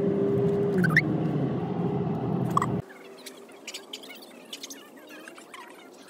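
A small Chihuahua whining and giving a few short high squeaks over the low rumble of a car cabin. About three seconds in, this cuts to a much quieter outdoor background with faint scattered chirps.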